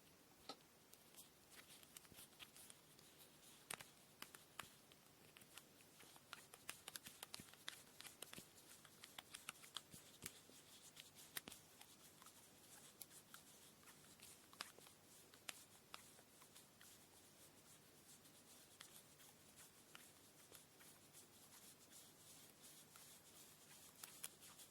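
Hands handling cotton braiding thread during kumihimo preparation: quiet rustling with many light, irregular clicks and ticks, busiest in the middle.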